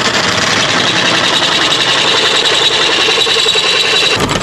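Hitachi benchtop drill press enlarging a hole in a steel pedal bracket, the bit cutting metal with a steady, loud, high-pitched grinding. Near the end the high cutting tone drops out and a lower sound takes over.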